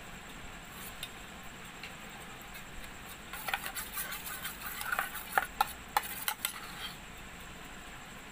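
Steel spoon stirring glue and activator in a stainless-steel bowl, clinking and scraping against the metal in a quick run of clicks from about three seconds in to about seven.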